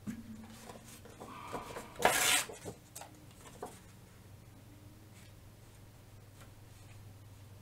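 Sheet of scrapbook paper being handled and torn: light rustling, then one short, loud rip about two seconds in, followed by a few faint rustles as the pieces are laid down.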